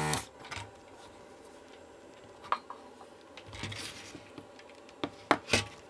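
A desoldering gun's vacuum pump runs and cuts off just after the start. Then it is quiet, with a few light clicks and taps, three of them close together near the end, as old electrolytic capacitors are pulled from the circuit board and set down on the workbench.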